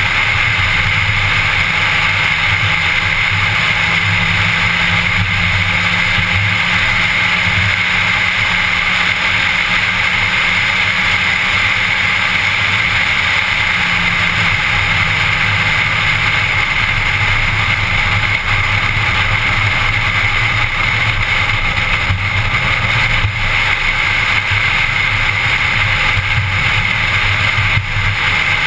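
A car driving at speed, heard from inside the cabin: a steady drone of engine and road noise.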